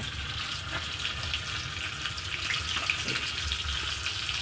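Whole tilapia frying in hot oil in a pan: a steady sizzle with many small scattered crackles and pops.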